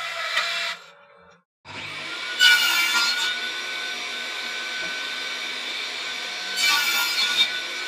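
Makita M3600 router motor starting up about a second and a half in, then running at speed with a steady high whine, growing louder and hissier twice as it cuts into wood. In the first second another run of a power tool cuts off.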